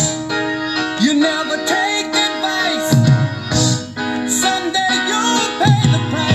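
Rock song with piano and singing playing loudly from a Sharp GF-CD55 portable CD boombox, its volume control working again after the mode selector switch and potentiometers were cleaned.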